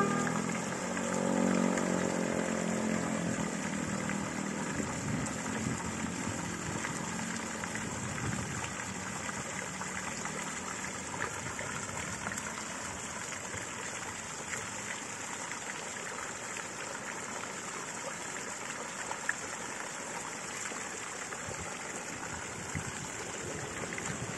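Street ambience with road traffic: a passing vehicle's engine hum fades out over the first few seconds, leaving a steady hiss of traffic noise.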